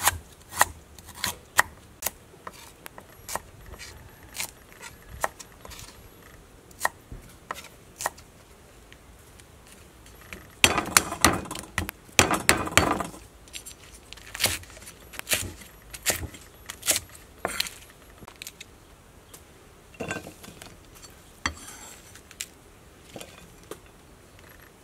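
Kitchen knife chopping aromatics such as garlic, shallots and lemongrass on a thick wooden chopping board: irregular single knocks of the blade on the wood, with a quick flurry of rapid chops about ten seconds in, the loudest part.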